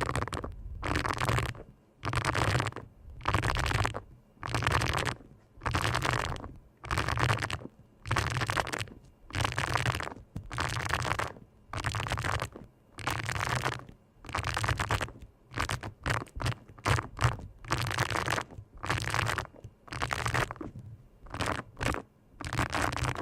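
Eyebrow brush stroked repeatedly in slow, even strokes about once a second. Each stroke is a scratchy swish with a low thud beneath it.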